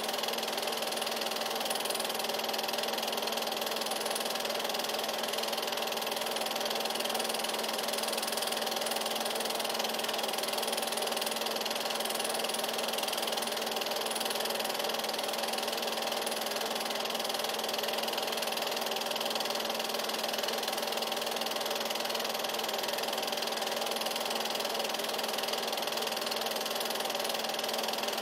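8mm film projector running with a steady whir of motor and mechanism, unchanging throughout.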